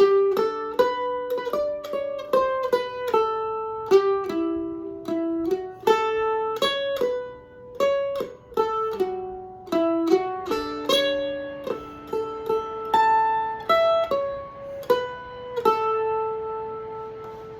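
Eastman mandolin played solo, picking a single-line bluegrass melody at a few notes a second and ending on one held note that rings out near the end.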